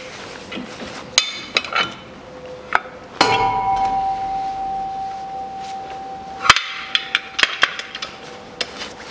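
Steel-on-steel clanks and knocks as the rear axle shaft is unclamped from a bench vise and lifted out. One hard knock about three seconds in leaves a clear metallic ringing tone that holds for about three seconds, then fades. A second sharp knock and a few small clicks follow.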